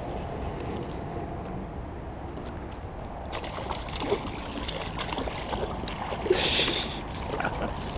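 Water splashing and sloshing at the bank as a small pike thrashes at the surface on a topwater lure, starting about three seconds in, with the loudest splash a little past six seconds.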